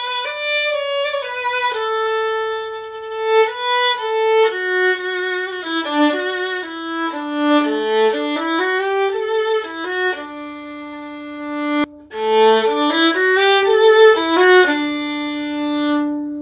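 Solo violin playing a hymn melody one note at a time, with a brief gap about twelve seconds in and a long held final note fading away near the end.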